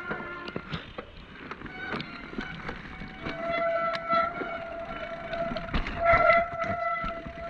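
Mountain bike riding down a rough trail: a run of knocks and rattles from the bike over uneven ground, and from about three seconds in a steady high whine from the bike, loudest around six seconds.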